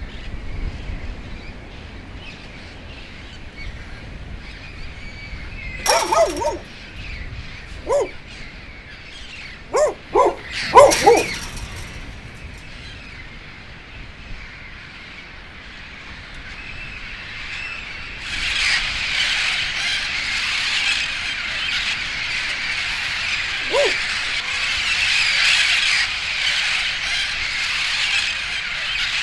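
A dog barks several times, short sharp barks. Then a large flock of birds starts up, a dense, continuous chatter of many overlapping calls.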